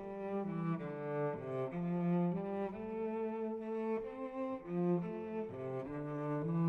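Instrumental music: a slow melody of long, held notes changing pitch every half second or so, with a sound like bowed strings.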